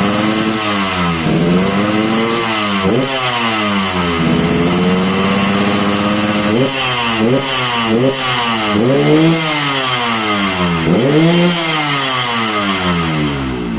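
Yamaha RX-King two-stroke single-cylinder engine revved in a series of quick throttle blips, the pitch rising and falling about a dozen times, with a steady hold near the middle. The bike is freshly set up for the mild 'ngorok jambu' growl.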